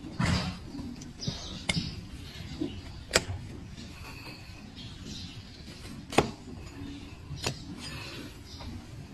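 Large flat hoof-trimming blade paring a donkey's hoof against a block: scraping of the blade through hoof horn, broken by a few sharp snaps as slices of hoof are cut through.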